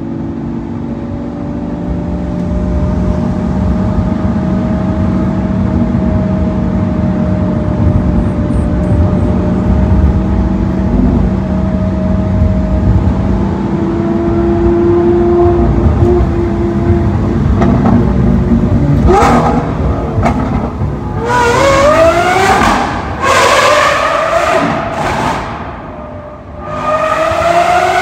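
A car engine runs steadily. From about two-thirds of the way in, it is revved or accelerated hard four times, each time climbing quickly in pitch.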